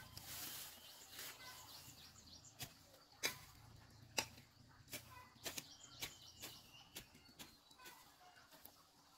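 More than a dozen sharp clicks and knocks at irregular intervals, the loudest a little after three and four seconds in, over faint bird chirps.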